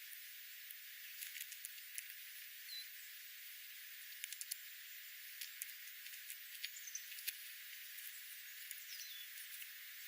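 Wild birds calling faintly: three short high chirps, the last one falling in pitch. These come over a steady hiss with many scattered sharp ticks.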